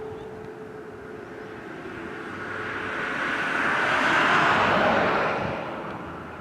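A vehicle passing by, its noise swelling to a peak about four to five seconds in and then fading. Underneath, a faint, steady siren tone from a distant outdoor warning siren fades out in the first couple of seconds.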